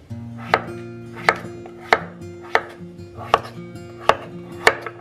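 Kitchen knife chopping peeled potatoes on a wooden cutting board: about seven sharp, evenly paced strikes, roughly one every two-thirds of a second.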